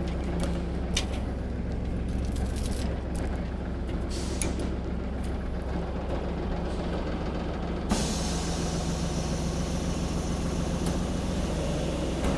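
Tire baler's diesel engine running steadily, with metal chains clinking as they are hooked onto the bale. About eight seconds in, a steady hiss comes in over the engine.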